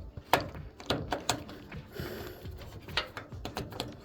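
Clicks and knocks of plastic parts being handled as a dryer door switch is worked into place: an irregular run of sharp clicks, with a short scraping rustle about halfway.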